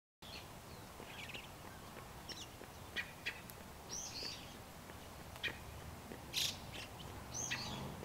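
Wild songbirds calling: scattered short, sharp notes and two longer arched, shrill calls, with a harsh, louder call about six seconds in.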